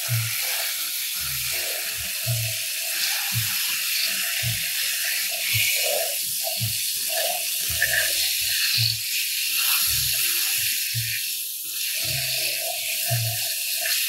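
Hose spray nozzle hissing steadily as its water jet washes mud off a plastic toy excavator, over background music with a steady beat.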